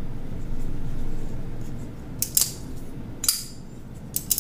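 A cloth rubbing along the steel blade of a Winter Blade Co. Factor folding knife. From about two seconds in come three or so sharp metallic snaps with a bright ring, as the blade is worked on its magnetic lock and detent: the blade 'sings'.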